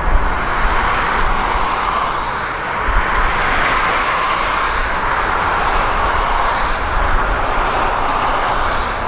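Steady rushing vehicle noise with a low rumble underneath.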